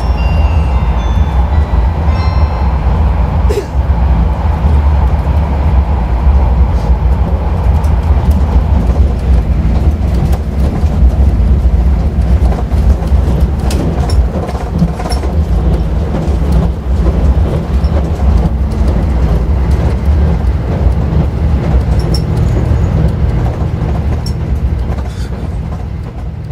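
Inside the cabin of a JR Shikoku N2000-series diesel tilting express under way: a steady low rumble from the engine and wheels, with scattered clicks from the rail joints. The last notes of the JR Shikoku chime ring out in the first couple of seconds, and the sound fades out near the end.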